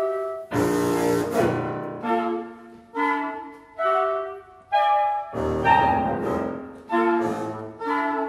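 Contemporary chamber ensemble of flute, clarinet, bassoon, saxophone, cello and piano playing a series of short accented chords, about one a second, each dying away. Two of them, about a second in and about five seconds in, are louder and harsher, with a noisy edge.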